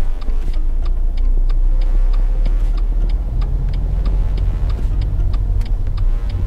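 Car's turn-signal indicator ticking steadily, about three clicks a second, heard inside the cabin over the engine's low rumble. The rumble grows about three seconds in as the car pulls away from the lights.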